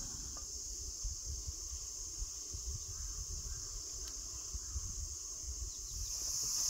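Steady high-pitched drone of a forest insect chorus, dipping in the middle and swelling again near the end, over a low, irregular rumble.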